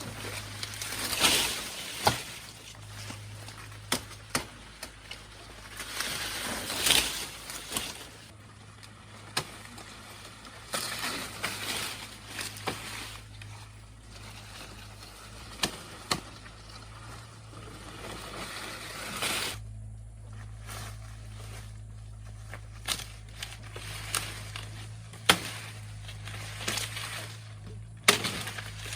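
Sugarcane stalks and leaves being cut and handled: repeated rustling swishes with many sharp knocks and snaps scattered throughout.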